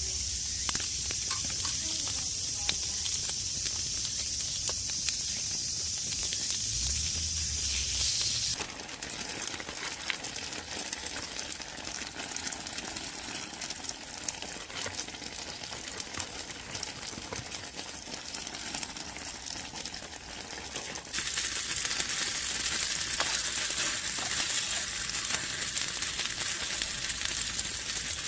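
Food sizzling and frying in a pan over a small wood fire, with scattered crackles. The sound changes abruptly twice, dropping to a quieter crackling about a third of the way in and returning to a loud sizzle about three quarters of the way in.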